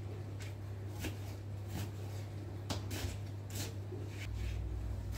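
Kitchen knife chopping an onion on a plastic cutting board: irregular knocks of the blade through the onion onto the board, roughly one or two a second, over a steady low hum.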